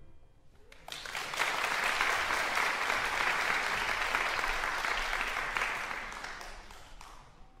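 The last piano chord's ring dies away, then audience applause starts about a second in, holds steady and fades out near the end.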